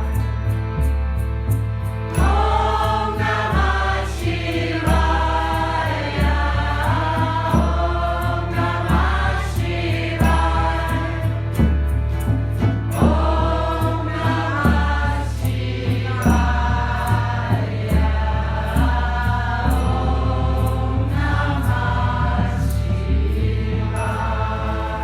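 Devotional chant music: a group of voices singing a mantra over a steady, pulsing low bass drone.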